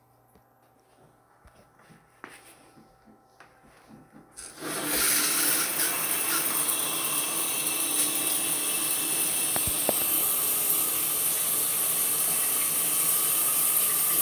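A few faint knocks and clicks, then about four and a half seconds in the shower water comes on and sprays in a loud, steady hiss.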